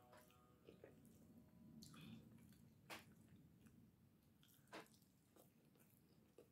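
Faint wet squishing and smacking of eating rice and egusi soup by hand, with a few scattered soft clicks of mouth and fingers.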